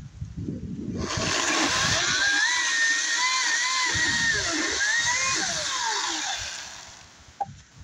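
Ryobi 40-volt cordless electric chainsaw cutting through a log. It starts about a second in, and its motor whine wavers under the load of the cut, then falls in pitch as the saw winds down near the end.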